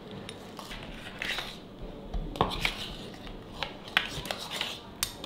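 A metal spoon scraping and clinking in a plastic bowl of baking soda and tapping against a plastic ice cube tray as it is filled: scattered light clicks and scrapes at an uneven pace.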